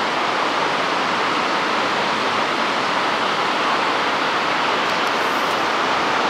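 Steady, even rushing noise, loud and unchanging, with no rhythm, tones or distinct events.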